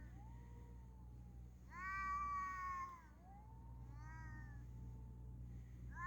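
Stray cats yowling at each other in a territorial standoff: long, drawn-out, sharp wails that slide slowly in pitch. The loudest comes about two seconds in, with fainter overlapping wails around it and another starting near the end.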